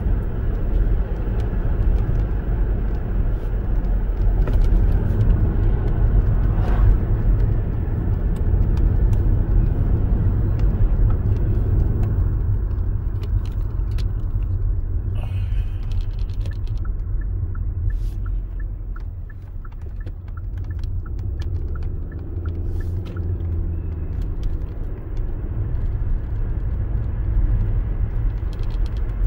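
Road and engine noise inside a moving car's cabin, a steady low rumble that eases as the car slows about two-thirds of the way in. Around the slowdown, a turn signal ticks about twice a second for several seconds.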